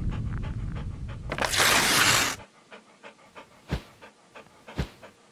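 A rumbling intro sound effect ends in a loud whoosh that cuts off about two and a half seconds in. A dog then pants quickly, a few breaths a second, with three louder breaths among them.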